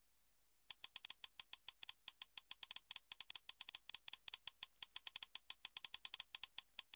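Faint typing sound effect: a quick, even run of key clicks, about eight a second, starting about a second in, as text types itself out.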